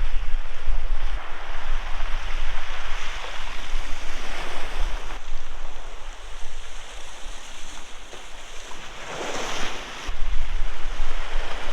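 Sea waves breaking and washing ashore, the surf swelling and easing with a louder surge about nine seconds in. Wind buffets the microphone.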